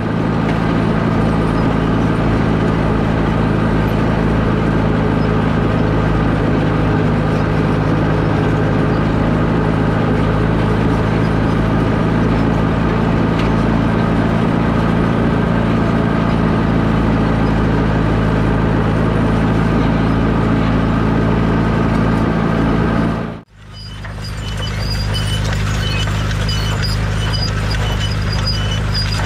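Allis-Chalmers WD45 tractor engine running steadily under load, with the McCormick No. 10 grain drill rattling behind it as it sows. About 23 seconds in the sound breaks off for an instant and resumes, now with a light, evenly repeating clinking from the drill's mechanism.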